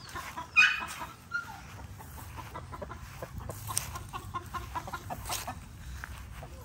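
Chickens clucking in short, repeated calls, with one louder, higher call about half a second in.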